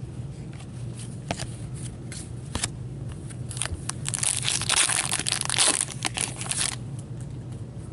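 Foil wrapper of a 2016 Goodwin Champions trading-card pack being torn open and crinkled, loudest from about four to seven seconds in, after a few scattered light clicks and rustles.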